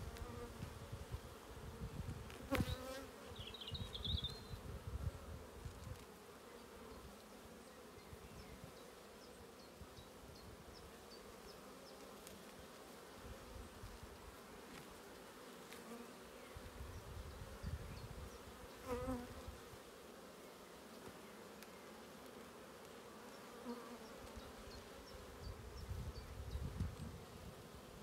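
Honeybees buzzing steadily around an open hive while its frames are lifted out, with two sharp knocks, one early on and one about two-thirds through.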